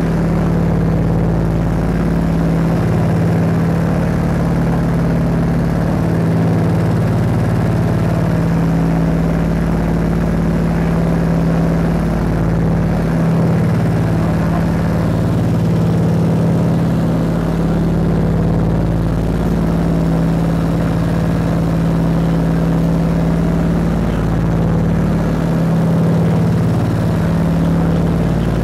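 Steady engine drone of a Scottish Aviation Twin Pioneer's two Alvis Leonides radial piston engines and propellers, heard inside the cabin in cruising flight. It is a constant loud hum with a strong low tone over a rush of air noise.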